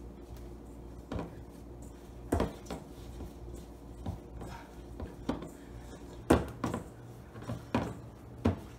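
Bread dough being kneaded by hand in a stainless steel mixing bowl: irregular knocks and thumps as the dough is pressed and the metal bowl shifts, the loudest about six seconds in, over a steady low hum.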